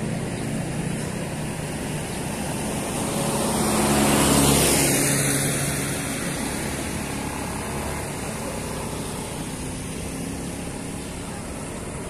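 A motor vehicle passes close by on the road, its engine and tyres growing louder to a peak about four and a half seconds in, then fading, over a steady low engine hum.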